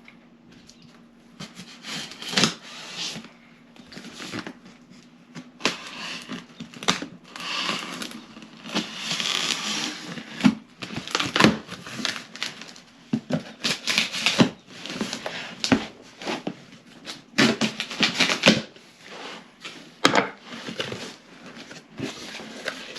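Cardboard shipping box being opened and unpacked by hand: irregular knocks, scrapes and rustling of cardboard and packing material.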